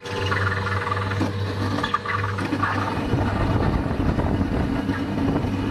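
Two-stroke snowmobile engine running steadily while riding a snowy trail, with the scraping hiss of skis and track on the snow.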